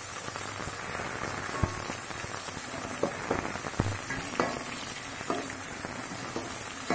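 Chopped shallots and tomato sizzling in hot sesame oil in a stainless steel pan while being stirred: a steady crackling sizzle with scattered taps and scrapes of the spatula against the pan.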